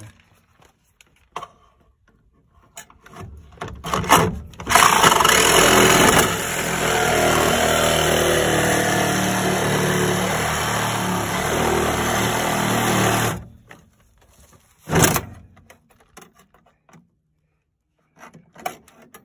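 Milwaukee Sawzall reciprocating saw cutting through car floor-pan sheet steel. It starts about five seconds in, runs steadily for about nine seconds and stops suddenly. A few knocks come before it and one after.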